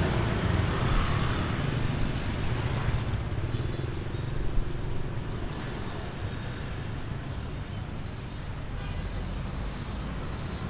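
Street traffic of motor scooters and cars passing close by, loudest in the first three seconds, then settling to a steadier, lower traffic hum.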